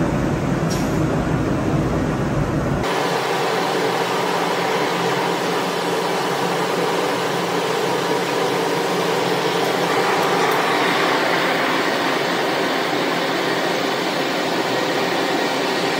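Pillow filling machine blowing loose fibre filling through its nozzle into a pillow case, a steady loud rushing of air. About three seconds in the deep rumble underneath drops away, leaving the rushing.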